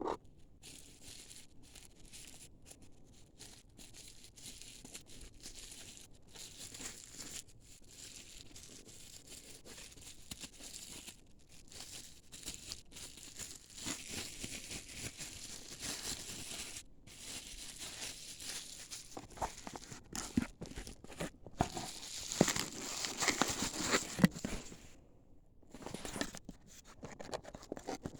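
Packaging being handled and opened, crinkling and tearing, with scattered small clicks and knocks. It gets louder and busier after about twenty seconds.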